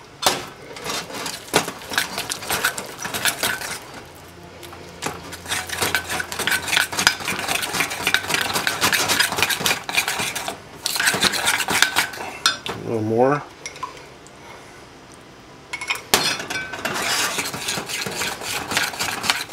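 Metal spoon stirring a thick powdered-sugar glaze in a mixing bowl, scraping and clinking quickly against the bowl in long runs. It pauses twice, the longer pause a little past the middle.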